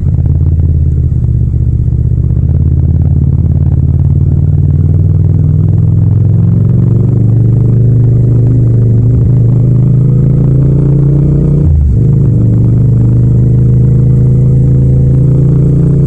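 Yamaha MT-07's parallel-twin engine through a Yoshimura exhaust, heard from the rider's seat, pulling under gentle acceleration with its note slowly rising. About three quarters of the way in it upshifts from second to third gear: the note drops briefly, then climbs again.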